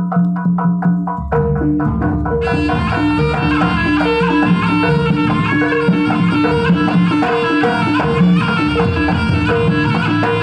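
Javanese jaranan gamelan playing: a few sharp strokes on the kendang barrel drum and bronze kettle gongs open it, then about a second in the whole ensemble enters, the kettle gongs striking two alternating pitches in a steady rhythm. From about two seconds in a reedy wind instrument carries a sustained melody over the gongs and drum.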